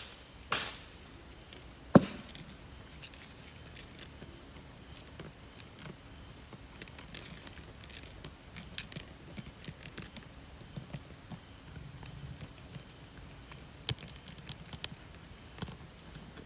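A single sharp, loud knock about two seconds in, just after a shorter scratchy burst, followed by scattered faint clicks and ticks, with a small cluster of them near the end.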